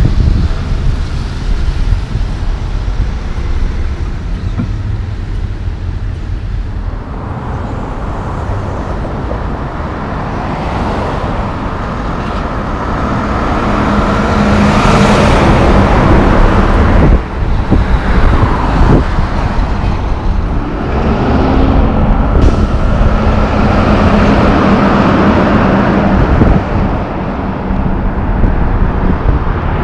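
Mack semi trucks driving past with diesel engines running and tyre noise from the road, among other traffic. The noise builds to its loudest about halfway through as a truck passes close, with a steady engine hum under it.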